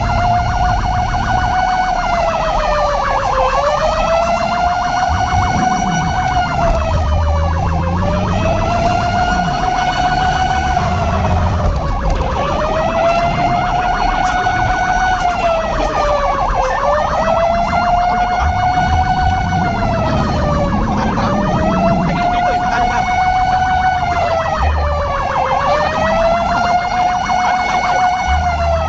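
Siren wailing continuously, its pitch rising and falling in a slow cycle about every four seconds, over a low rumble.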